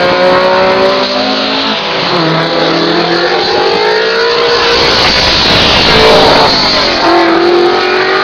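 Historic rally cars accelerating past, several engines overlapping with their pitch climbing in steps through the gears. The loudest car goes by about six seconds in, and another engine climbs again near the end.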